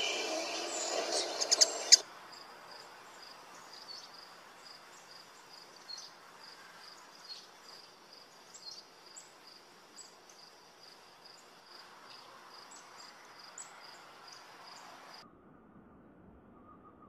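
A loud rushing noise with a few sharp clicks for the first two seconds. Then insects chirping in the background: a steady row of short high chirps a few times a second, with scattered higher chirps over it. The sound cuts off abruptly about fifteen seconds in.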